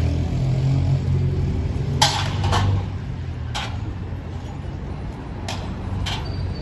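An engine running steadily at a low, even hum, with about five sharp knocks at irregular intervals; the first and loudest comes about two seconds in.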